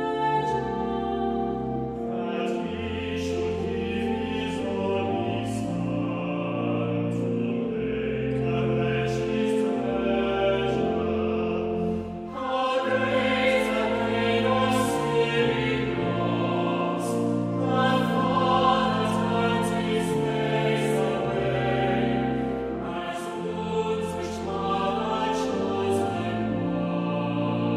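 Closing church music: a choir singing held chords that move every second or two, with a brief lull about twelve seconds in.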